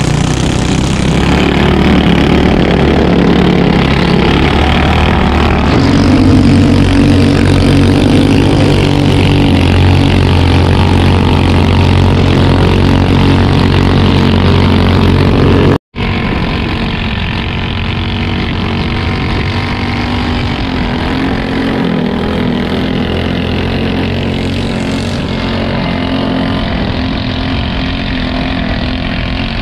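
A fast boat's engine running loud and steady under way, growing a little louder about six seconds in. It cuts out for an instant about halfway through and is somewhat quieter afterwards.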